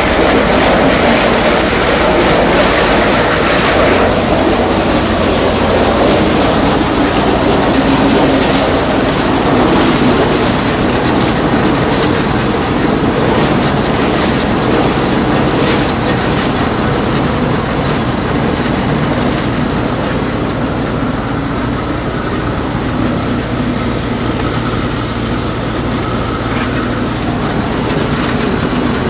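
Drilling rig machinery running loud and steady while spudding in a well, with the drill pipe turning in the rotary table.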